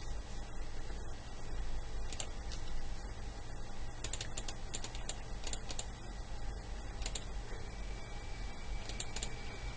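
Computer keyboard typing in short clusters of quick clicks over a low steady hum from the running open-frame PC. A faint high whine comes in near the end.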